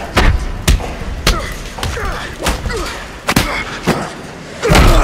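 Fight-scene punches and body blows landing as thuds every half second or so, with grunts and strained breaths between them and a heavier blow near the end.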